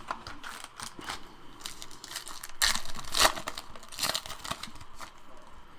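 A foil trading-card pack wrapper crinkling and tearing as it is opened by hand, in a string of sharp rustles with the loudest tearing a little before halfway.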